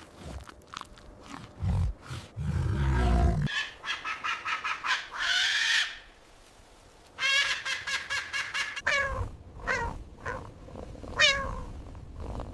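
A series of animal calls: a few low grunts in the first three seconds, then high, wavering cries from about three and a half seconds in, several of them falling in pitch.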